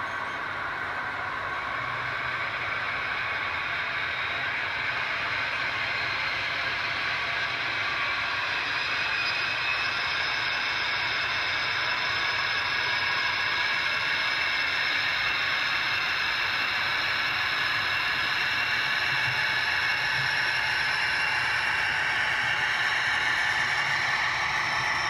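Model Class 56 diesel locomotive running as it gets its long ballast train moving: a steady mechanical sound that grows slowly louder as the train draws closer.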